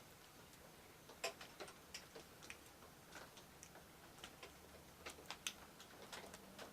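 Faint, irregular small clicks and ticks of a blade working along insulated copper wire as it is stripped by hand.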